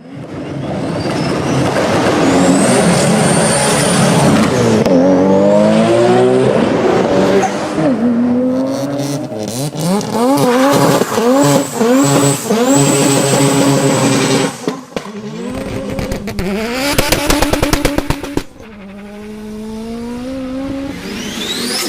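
Turbocharged car engine accelerating hard, its pitch climbing and dropping with each gear change, with a high turbo whistle over it. About fifteen seconds in, on lift-off, comes a rapid fluttering chatter of turbo compressor surge lasting a couple of seconds, then the engine pulls again.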